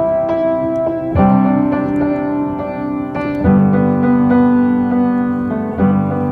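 Background music: sustained piano or electric-piano chords, changing every second or two.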